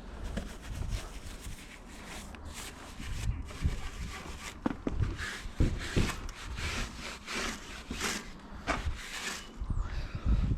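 Soft-bristled brush scrubbing a mud-covered mountain bike in quick, uneven strokes, working cleaner in to loosen the dirt.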